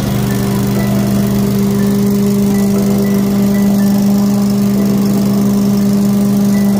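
Briggs & Stratton Vanguard 18 hp engine on a Billy Goat debris loader running at a steady speed just after a hard pull-start.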